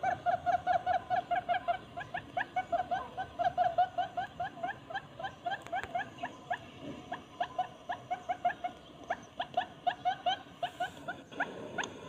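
Barred buttonquail calling: a long, unbroken run of short, upswept notes, several a second, coming thicker and louder in some bouts and more spaced out in others.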